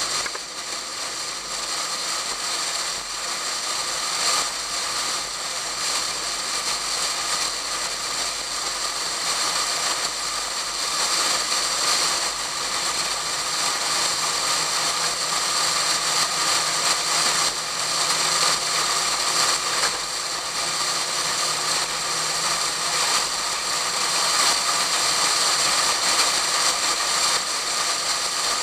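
Wind rushing and buffeting over a camera in a waterproof case mounted outside a Pontiac Fiero at track speed, a steady hiss that drowns most else. The car's engine shows as a faint low hum from about halfway through for several seconds.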